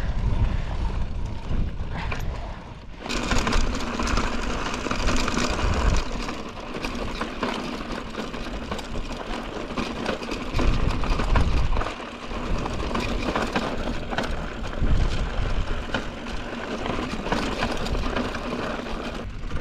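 Mountain bike being ridden on a dirt trail: tyres rolling and crunching over gravel with the drivetrain rattling and clicking, and wind buffeting the microphone in heavy low gusts. The hissy rolling noise gets much louder about three seconds in.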